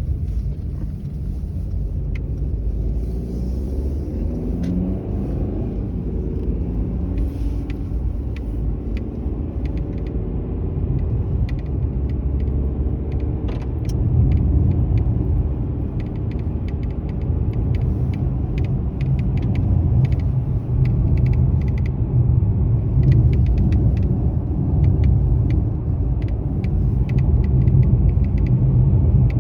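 Mercedes-Benz E-Class (W213) dashboard crackling and rattling in sharp irregular clicks over the steady low rumble of the car on the move, the clicks coming in dense bursts mainly in the second half. The noise comes and goes, and dealer visits have not found its cause.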